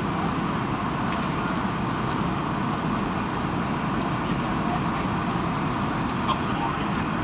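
Steady cabin noise inside a Boeing 737-700 on approach: the even rush of airflow over the fuselage mixed with the drone of its CFM56 turbofan engines.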